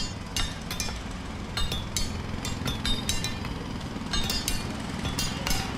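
Sharp metallic clinks, irregular, about two or three a second, over a steady low engine-like rumble.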